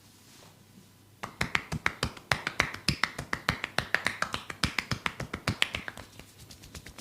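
A masseur's hands striking skin in a fast percussive massage rhythm, sharp slapping claps about seven a second, starting about a second in.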